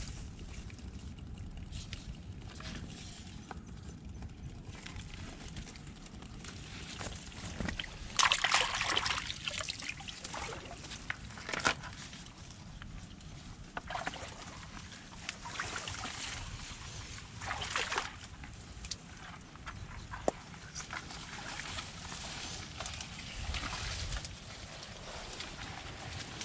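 Wet mud squelching and sloshing as a person moves barefoot through a mangrove mudflat. The loudest slosh comes about eight seconds in, with several smaller wet bursts after it, over a steady low rumble.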